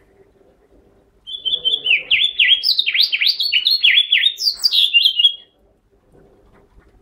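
Caged male house finch singing one rapid warbling phrase of quick down-slurred notes. It starts about a second in and lasts about four seconds, ending with a few higher notes.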